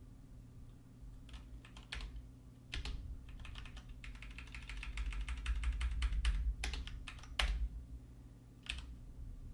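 Typing on a computer keyboard: a few scattered keystrokes, then a fast run of typing in the middle, then a few single, sharper key presses near the end, over a low steady hum.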